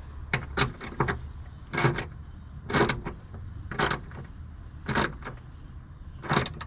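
Sharp metallic clinks and clicks, roughly one a second, from small metal parts or tools being handled, over a steady low hum.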